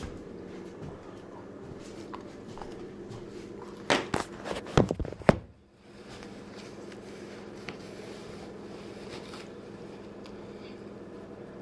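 Steady low room hum, broken about four seconds in by a quick cluster of sharp knocks and clatter lasting about a second and a half.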